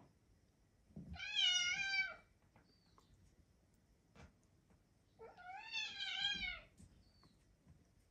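A cat meowing twice: two drawn-out meows with a wavering pitch, each lasting over a second, about four seconds apart.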